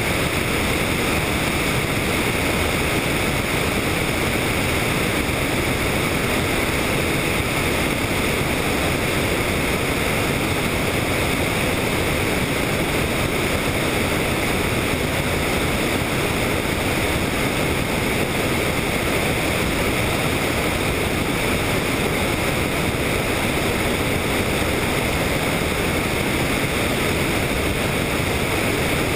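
Steady, unbroken rushing noise of a helicopter in flight, picked up by a camera riding on it, with wind on the microphone.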